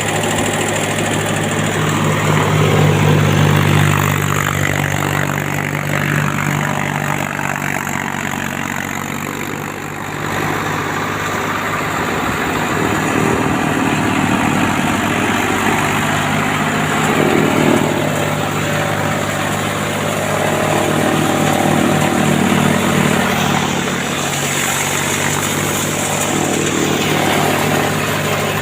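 Chaff cutter machine running steadily: a continuous mechanical drone with a steady low hum, dipping briefly about ten seconds in.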